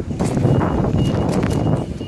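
MetroValencia train passing close by: a loud rumbling rush with a few sharp knocks and a faint high steady tone, dropping off near the end.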